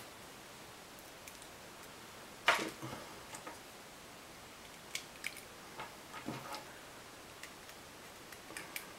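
Handling noise from test leads and meters being handled: one sharp knock about two and a half seconds in, then scattered small clicks and taps.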